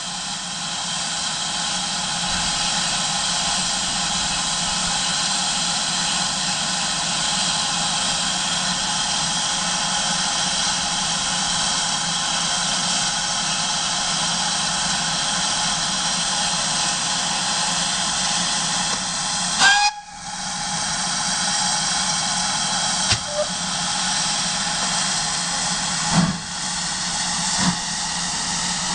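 Standing steam locomotive hissing steadily with escaping steam, with steady tones in the hiss. About twenty seconds in, a short rising sound ends in a sudden cut, and a few short knocks follow near the end.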